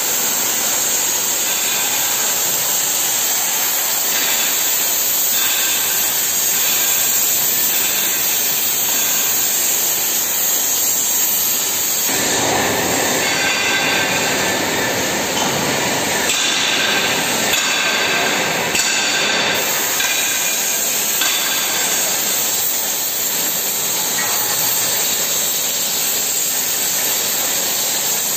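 CNC torch cutting mild steel plate: a loud, steady hiss, louder and rougher for several seconds in the middle.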